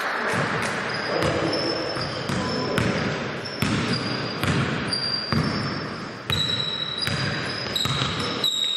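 A basketball bouncing on a court about once a second, with short high sneaker squeaks between the bounces.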